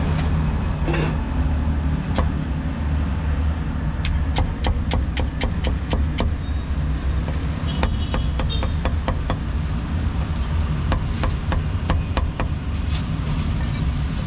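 Cleaver chopping crispy roast pork belly on a wooden chopping board: sharp knocks in runs, with a quick burst of about five chops a second about four seconds in and more near the end, over a steady low rumble.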